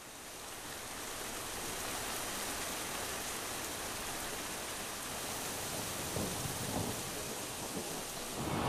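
Rain falling steadily on a wet asphalt road and splashing into puddles, fading in at the start. A low rumble joins in about six seconds in.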